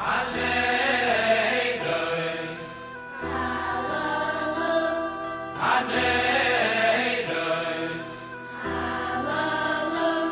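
Background music: singing voices over held chords, in phrases of a few seconds each.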